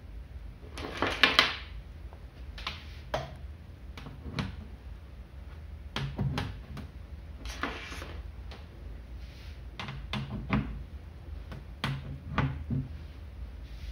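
Patch leads with banana plugs being handled and pushed into the jacks of a relay trainer panel: a string of irregular clicks and knocks, the loudest a rustling clatter about a second in.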